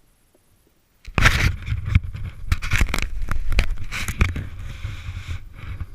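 Snowboard sliding and scraping over snow, with a heavy low rumble and repeated rough scraping strokes as the edges bite; it starts suddenly about a second in after near silence.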